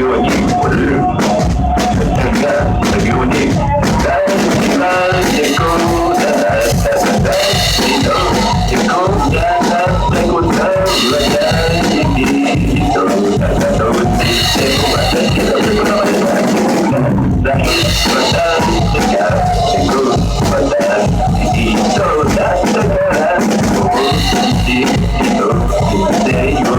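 Loud rock music with a drum kit being played hard: a drum cover played along to a rock song, with dense drum hits.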